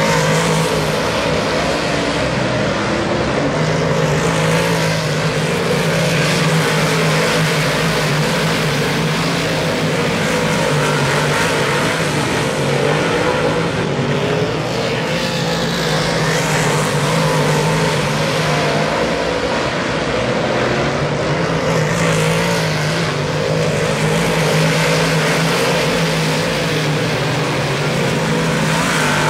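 A field of dirt modified race cars running their V8 engines around a dirt oval. The engine note is loud and continuous and wavers up and down as the cars pass.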